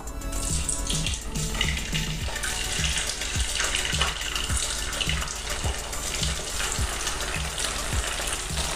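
Squares of idli sizzling and bubbling as they deep-fry in hot oil in an aluminium kadai, pieces being dropped in by hand.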